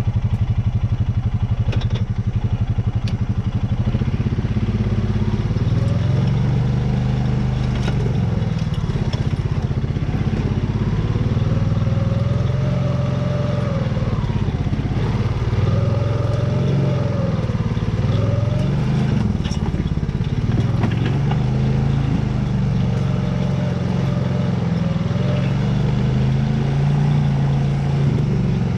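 Honda Rancher 420 ATV's engine running under load while climbing a steep trail, its pitch rising and falling every few seconds, with a few sharp clicks and knocks.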